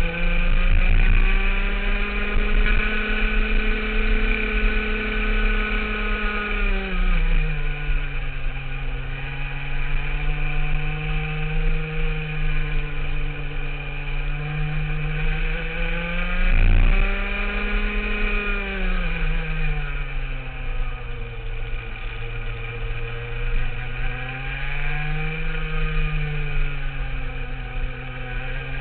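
Rotax two-stroke kart engine running hard on track, its pitch holding high at first, dropping about a quarter of the way in as the kart slows for a corner, then climbing and falling again twice as it accelerates and brakes through the following bends.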